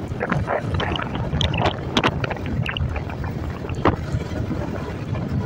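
Wind buffeting the microphone of a moving Yamaha motorcycle, over a steady low rumble of engine and road noise, with irregular crackling pops from the wind throughout.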